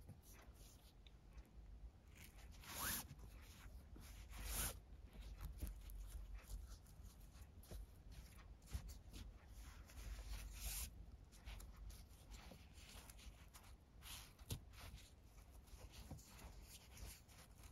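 Faint rustling and swishing of nylon paracord pulled through the knots of a macrame collar, with a few brief louder swishes about three, four and a half and eleven seconds in.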